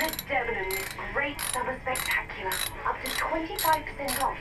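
Hand work inside the front of a Honda PCX scooter: short, sharp clicks and rattles of tools and parts being handled, about two a second, with a voice talking underneath.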